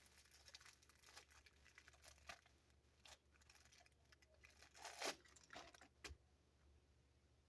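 Faint crinkling and rustling of a squishy toy's plastic wrapper being torn open, with a louder rip about five seconds in.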